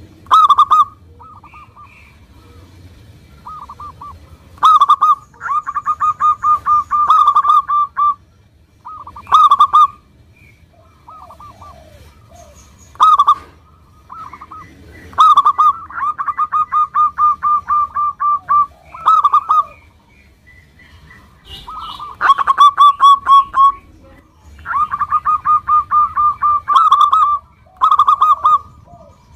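Zebra dove (perkutut) singing: repeated phrases, each a loud opening coo followed by a quick run of short coos, with brief pauses between phrases.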